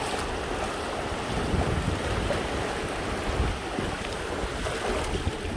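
Small waves washing in over a flat sandy beach, with wind buffeting the microphone in low rumbles.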